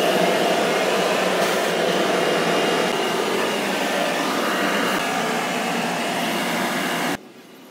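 Steady rushing air noise in a car paint spray booth, cutting off abruptly about seven seconds in.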